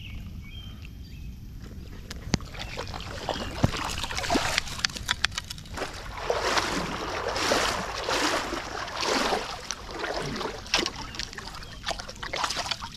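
Wading steps sloshing through shallow lake water, coming in uneven surges, with splashing near the end as a hooked rainbow trout is scooped into a landing net. Rain patters steadily on the water underneath.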